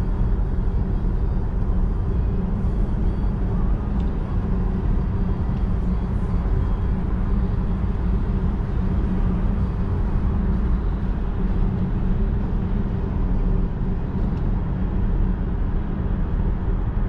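Steady road and wind noise inside the cabin of a Volkswagen ID.3 electric car cruising on a motorway at about 80–90 km/h: an even low rumble.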